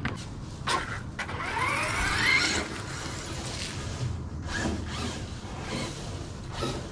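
Electric RC car motor spooling up, a rising whine about a second and a half in that is the loudest sound here, with a few short clicks and knocks around it.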